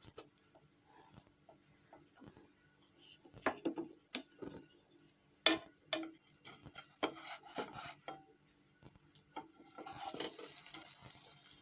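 Spatula knocking and scraping against a frying pan as a buttered sandwich is turned over: a few scattered clicks and knocks, the sharpest about five and a half seconds in.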